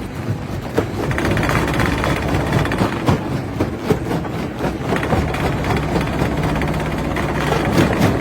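Heavy machinery running under load, a continuous mechanical din with irregular knocks and a low hum, getting louder about a second in.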